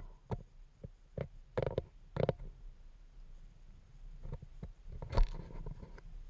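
Wind buffeting a GoPro's microphone in uneven gusts, with a low rumble and irregular thumps, the loudest a little after five seconds in.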